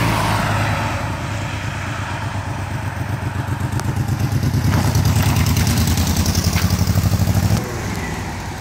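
Yamaha touring motorcycle's engine approaching and growing louder, then running slowly close by with an even, pulsing exhaust beat. About three-quarters of the way through it drops suddenly to a fainter engine sound as the bike rides away.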